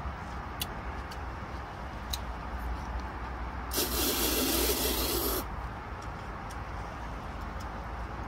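A person slurping a mouthful of cold buckwheat noodles (bibim naengmyeon) in one long, noisy slurp of about a second and a half, starting near four seconds in. A few faint clicks and a steady low rumble run underneath.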